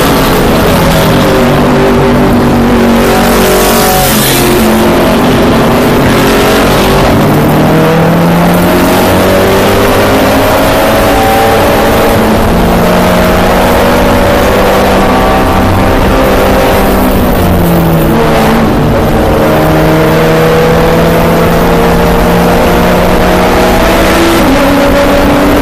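Volkswagen Jetta GLI touring race car's turbocharged four-cylinder engine, heard from inside the cockpit at racing speed. The engine's pitch climbs through each gear, then drops sharply at the shifts and braking points, over a steady rush of tyre and wind noise.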